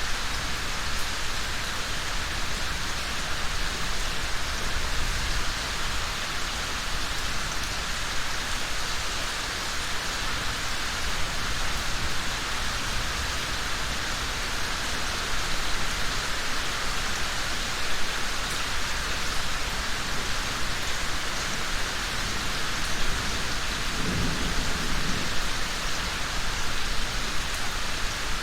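Steady rain: a dense, even hiss of falling drops, with a low rumble underneath and a brief deeper swell near the end.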